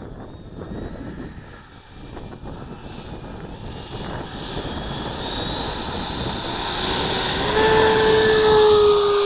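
Whine of a model jet's 105 mm electric ducted fan, growing steadily louder as the jet comes along the runway and close by. Its pitch drops slightly as it goes past near the end.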